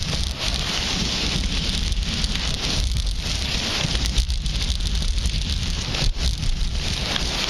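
Skis hissing and scraping over groomed snow on a fast downhill run, with wind buffeting the camera's microphone in a low rumble.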